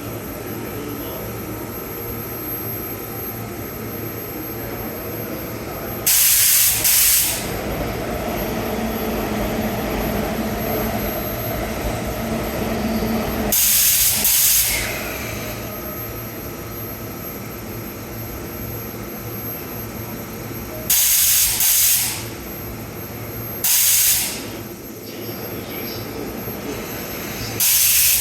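Repeated loud bursts of air hiss from the underfloor equipment of a stopped E233 series electric train, five in all, each about a second long, over a steady mechanical hum.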